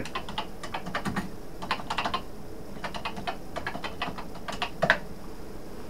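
Typing on a Commodore PET's keyboard: bursts of keystrokes with short pauses between them.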